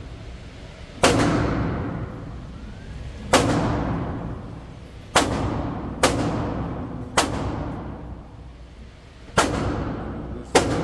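Seven single gunshots at irregular intervals, each followed by a long echoing decay in the enclosed concrete indoor range.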